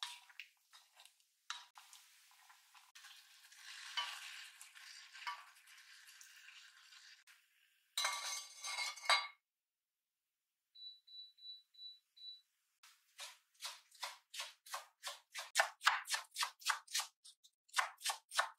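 A spoon scraping and stirring rice in a white Staub cast-iron pot, then a clatter lasting about a second. After that, an induction hob's control panel gives five short beeps. Near the end a knife chops green onions on a wooden cutting board in quick, even strokes, about four a second.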